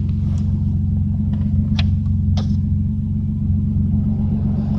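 The Grand Prix's 3800 V6 engine idling with a steady low hum, with a few sharp clicks over it. Near the end a rush of air starts as the newly installed blower motor's fan comes on.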